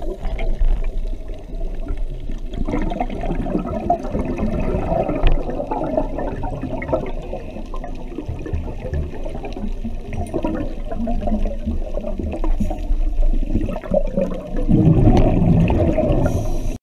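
Underwater bubbling and gurgling of a scuba diver's exhaled air bubbles rising past the camera, with a louder rush of bubbles near the end.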